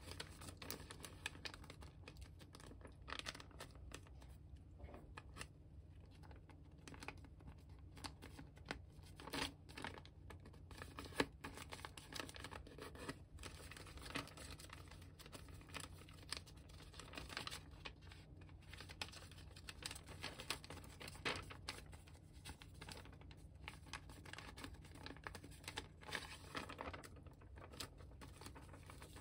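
Origami paper being folded and creased by hand: soft, continual crinkling and rustling with light scrapes of fingers along the paper, and one sharper click about eleven seconds in.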